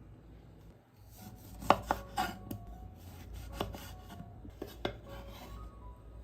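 Kitchen food-preparation sounds: a handful of sharp, irregular knocks and clinks, the loudest about two seconds in, with scraping and rubbing between them.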